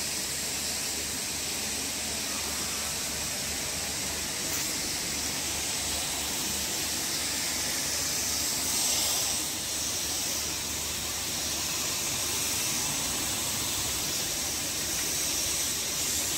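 Steady, even hiss of outdoor background noise, with no distinct sounds standing out.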